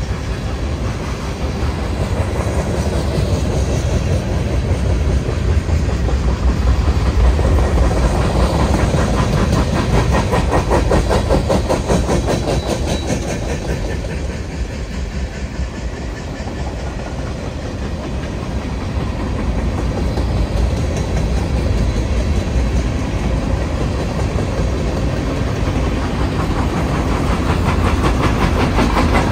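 Freight train of tank cars and covered hopper cars rolling past at speed, with a steady low rumble and steel wheels clicking rapidly over the rail joints.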